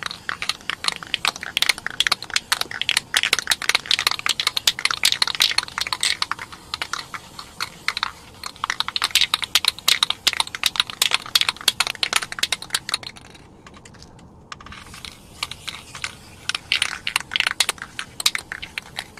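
An aerosol spray paint can being shaken hard, its mixing ball rattling in quick runs of clicks, with a short pause about two-thirds of the way through.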